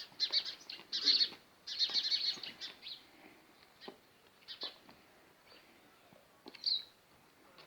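Birds chirping in rapid, dense bursts of high notes for about three seconds, thinning to scattered single chirps, with one sharper call near the end.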